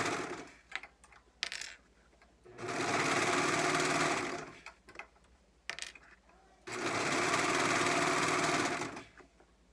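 Brother 1034D serger (overlocker) stitching in short runs of about two seconds each, three in all. It stops between runs, and small clicks are heard in the gaps as the fabric is repositioned.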